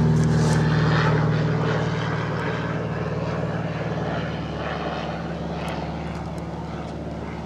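Propeller-driven airplane engine droning steadily overhead, slowly fading as it moves away, with a few faint clicks.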